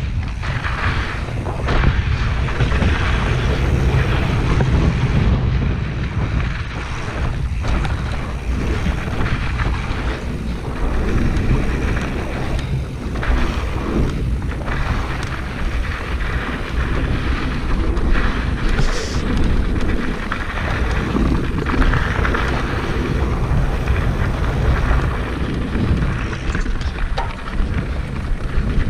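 Wind buffeting the microphone of a GoPro action camera on a moving mountain bike, a loud steady rumble, with tyres crunching over a dry dirt trail and the bike's frame and chain knocking and rattling over bumps throughout.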